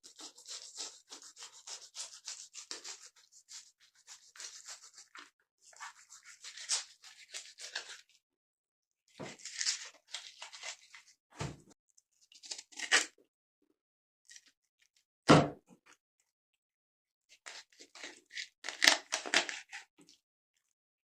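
Fish being butchered by hand: runs of quick rasping, scraping strokes with pauses between them, a sharp knock about eleven seconds in and a louder one about fifteen seconds in.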